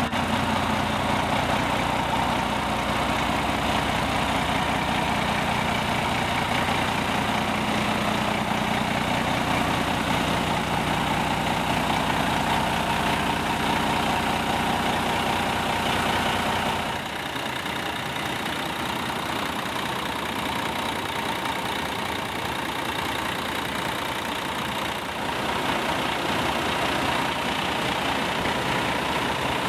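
Peterbilt truck's diesel engine idling steadily. About halfway through, its low end fades and the level dips, and it grows louder again a few seconds before the end.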